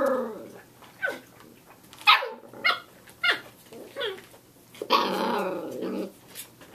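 Six-week-old Samoyed puppies play-fighting: a string of short, high yips and barks, then a longer rough growl about five seconds in.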